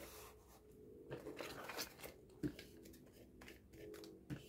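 Faint handling of paper and sticky tape: light rustling with a few soft taps.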